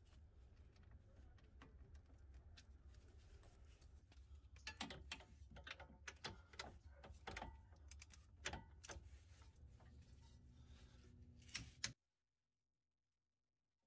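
Faint, scattered metallic clicks of a torque wrench tightening the control arm bushing bolts, over a low steady hum. The sound cuts out to complete silence near the end.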